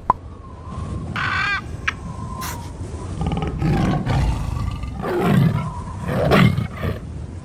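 Animal sound effects for a logo intro: a sharp click, a short high-pitched call about a second in, then a big cat, a tiger, roaring about three times, the last two loudest.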